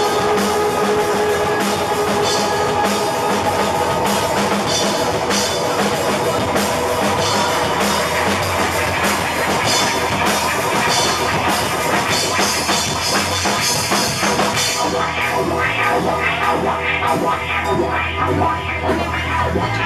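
Rock band playing live: electric guitar over a drum kit keeping a steady beat with cymbals. About three-quarters of the way through, the cymbals drop back and the drums carry on.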